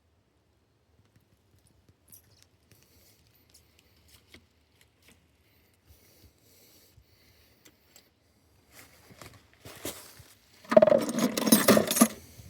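Faint scattered clicks and handling noises, then a loud jangling, rattling clatter lasting about a second and a half near the end.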